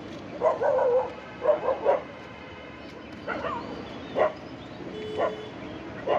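A dog barking and yipping: a quick run of barks in the first two seconds, then single short barks about once a second.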